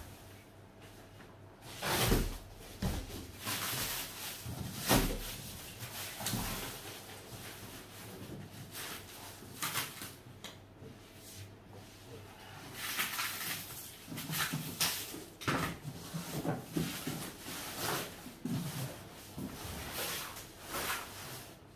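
Cardboard packaging and plastic wrap being pulled and handled around a wooden shoe rack: irregular rustling, scraping and knocks, with two heavy thumps about two and five seconds in.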